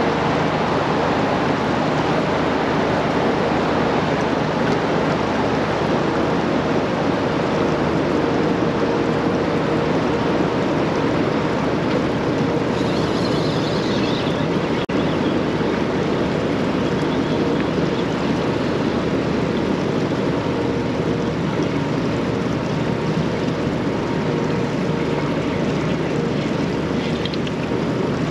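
Steady rushing noise of fast river water and wind on the microphone, with a faint steady hum underneath.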